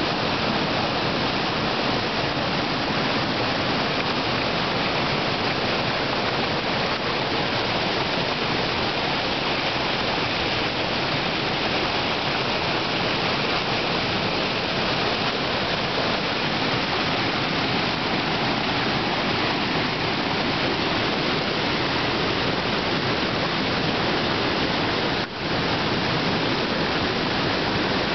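Waterfall pouring over a rock ledge into a churning plunge pool, heard from right beside the falls: a loud, steady rush of water that briefly drops out about 25 seconds in.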